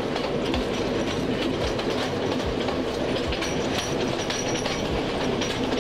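Ella Odyssey passenger train running along the line: a steady rumble with the wheels knocking over rail joints about once a second.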